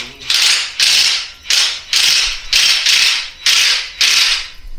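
A ratchet wrench with a 19 mm socket worked back and forth on the motorcycle's rear axle or chain-adjuster bolt: about eight strokes of ratchet clicking, roughly two a second.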